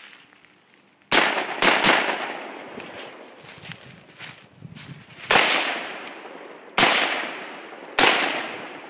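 Six shots from an AR-15 rifle: a quick group of three a little after one second in, then three single shots spaced about a second and a half apart, each followed by a fading echo.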